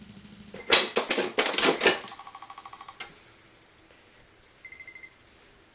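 Yamaha portable electronic keyboard clattering and sounding as a dog's paws tread on its keys. A quick, loud flurry of sharp, typewriter-like strikes comes about a second in, with fainter rapidly pulsing electronic tones before and after it.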